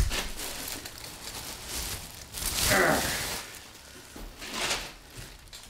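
Clear plastic packaging bags crinkling and rustling as armour is handled and lifted out of them, loudest a little before the middle. A short breathy voice sound comes about three seconds in.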